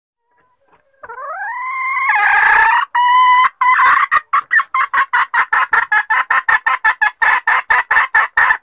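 A junglefowl (forest chicken) hen calling. She gives a rising, drawn-out note about a second in, then a long run of loud, rapid clucks at about four to five a second, which stop suddenly near the end.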